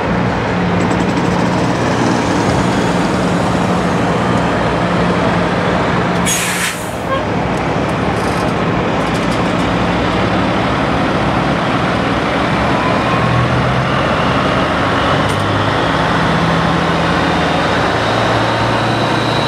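Peterbilt 379 semi trucks' diesel engines running at low speed, a steady low hum that shifts in pitch as they move. About six seconds in comes a short, sharp hiss of air, like an air brake releasing.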